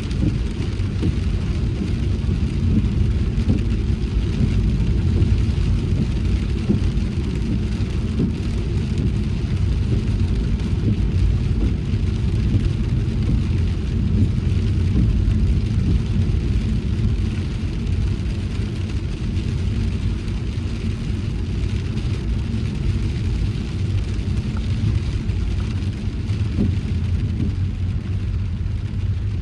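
Steady low rumble of a car driving on a wet road in rain, with a faint hiss of rain and spray over it.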